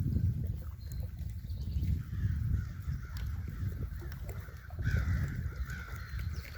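Uneven low rumble of wind buffeting the microphone, with harsh bird calls, crow-like caws, coming in about two seconds in and growing louder near the end.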